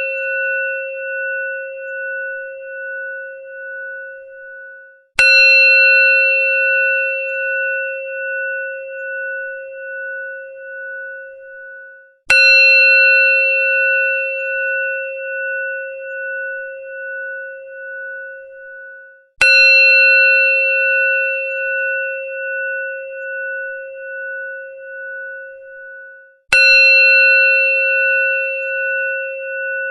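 Temple bell struck four times, about seven seconds apart. Each strike rings a clear tone that wavers in loudness as it fades, and each ring is cut short by the next strike.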